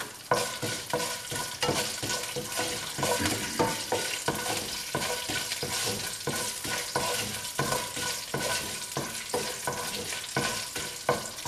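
Mustard seeds, urad dal and chana dal frying in oil in a non-stick pan, with a steady sizzle. A spatula stirs and scrapes through them in repeated quick strokes.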